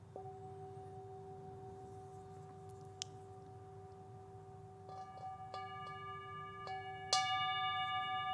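Soft meditation music: a steady held tone, joined about five seconds in by bell-like struck notes, the loudest about seven seconds in.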